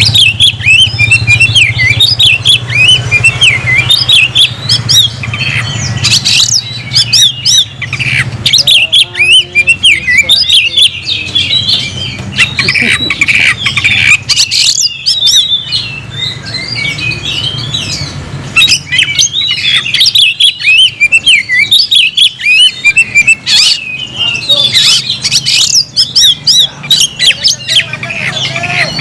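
Oriental magpie-robin (kacer) singing a loud, fast, unbroken stream of varied chirps and harsh squawky notes, the full challenge song of a bird calling out a rival. A low steady hum sits beneath it for the first several seconds, then fades.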